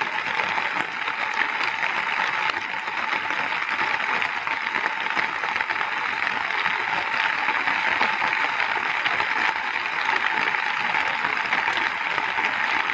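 Heavy rain falling steadily on a lake's surface and the reeds and plants at its edge: a dense, even hiss that does not let up.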